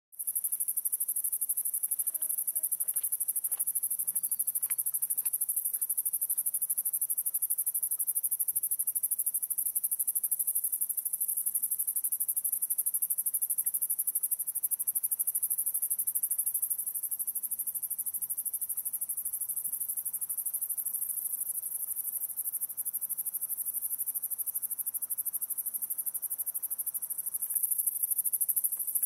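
A chorus of summer night insects: a steady, high-pitched, rapidly pulsing trill, with a few faint clicks in the first few seconds.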